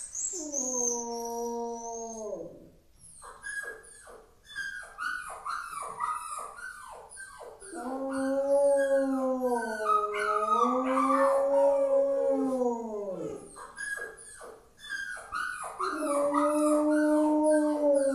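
Rottweiler howling: a falling howl, then a run of short yelping cries that slide down in pitch, a long wavering howl, more yelps and a final held howl near the end. The owner hears it as the dog upset over a puppy.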